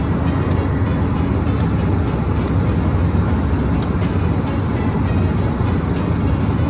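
Steady, loud low rumble of a vehicle running without a break.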